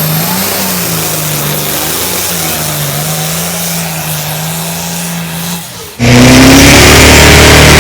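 Pulling-truck engine running hard at nearly steady revs. About six seconds in, it cuts suddenly to a much louder engine at a higher pitch.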